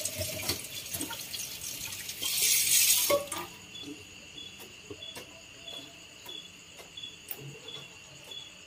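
Tap water running into a stainless steel kitchen sink while a baby bottle is rinsed. The flow gets louder about two and a half seconds in, then is shut off after about three seconds. After that a faint high-pitched chirp repeats about twice a second, with a few light clicks as the bottle is handled.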